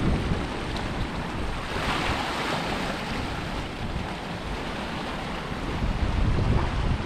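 Ocean surf washing and churning in the water below, with wind rumbling on the microphone. A louder wash of water swells up about two seconds in.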